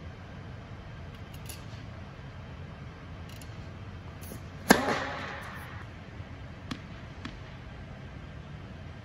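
A tennis serve: the racket strikes the ball once, sharply, about halfway through, and the hit rings on briefly in the air-dome court. A few faint ticks come before and after it.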